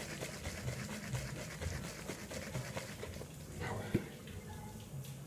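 A person drinking from a bottle: sips, swallows and breaths, with a sharp click about four seconds in.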